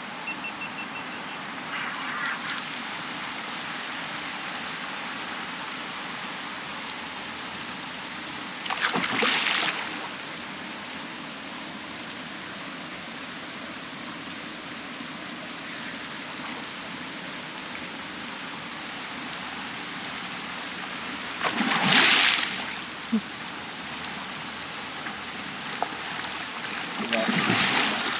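Water splashing three times, each burst about a second long, the second the loudest, over a steady outdoor hiss: a hooked Siamese carp thrashing at the surface as it is played in.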